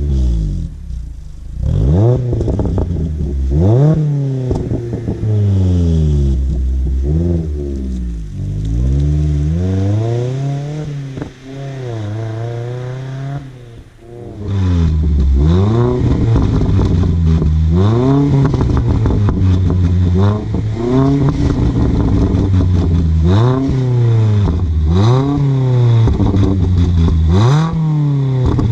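2019 Mazda MX-5 ND2's four-cylinder engine revved again and again through a Goodwin Racing RoadsterSport axle-back exhaust. Each rise in pitch falls away with crackles and pops on the overrun, the sign of a 'cracks and pops' VersaTuner tune. About halfway through the revs turn louder and come quicker, roughly one every one and a half to two seconds.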